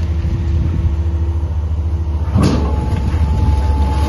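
Excavator's diesel engine running with a steady low drone while it breaks up a concrete building, and one loud crash of demolition debris about two and a half seconds in, followed by a thin steady whine.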